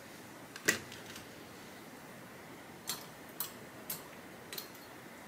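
Light clicks of a metal hair shear being handled in its sharpening clamp. There is one sharper click about a second in, then four softer ones about half a second apart.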